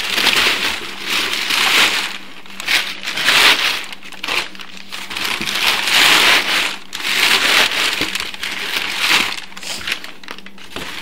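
Brown kraft packing paper being crumpled and stuffed back into a cardboard shipping box, in repeated loud rustling swells about every second.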